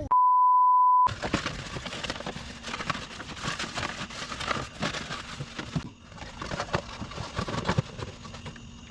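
A steady one-second beep, then a low crackling with many scattered small clicks.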